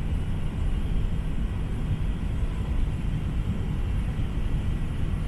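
Airbus A380 airliner cabin noise: a steady low rumble of engines and rushing air with a faint thin whine above it, unchanging throughout.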